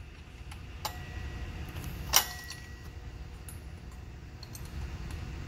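Steel bolts clinking against a water pump pulley as they are threaded in by hand: a few sharp metallic clicks, with one louder, ringing clink about two seconds in, over a low background hum.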